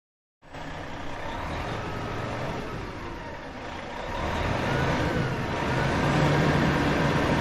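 Van sound effect: a motor vehicle engine running after a brief silence at the start, growing louder from about four seconds in.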